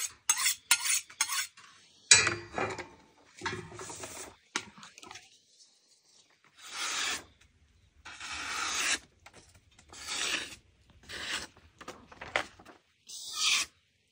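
A few quick scraping strokes of a knife blade on a steel honing rod. Then the freshly sharpened knife slices through a sheet of paper in about six separate cuts, each a swish of half a second to a second. The cuts test the edge, which is judged well sharpened.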